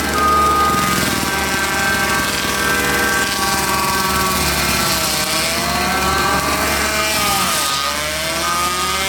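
Skid steer running a hydraulic rotating tree saw, a steady machine whine that sags in pitch twice as the blade loads up cutting into hedge (Osage orange) trees, then recovers.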